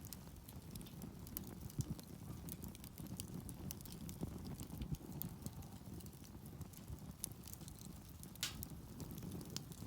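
Wood campfire crackling with frequent small pops and one louder snap about eight and a half seconds in, over a low steady rumble.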